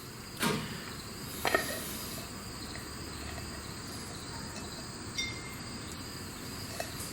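Crickets chirping steadily in the background, with two light knocks about half a second and a second and a half in.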